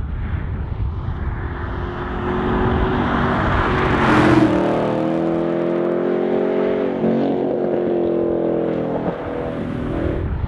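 Chevrolet Camaro Z/28's 7.0-litre LS7 V8 driving past under throttle. The exhaust note builds as the car approaches and peaks with a rush about four seconds in. Then the pitch drops and the engine note carries on as the car pulls away up the road.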